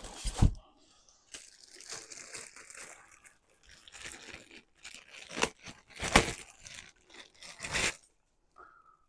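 Unboxing packaging being handled: irregular rustling and crinkling, with a few louder knocks as parts are moved about.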